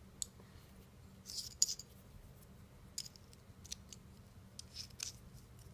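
Faint, scattered small metallic clicks and scrapes as a bit is fitted into the tip of a Kaisi K3310 precision screwdriver handle.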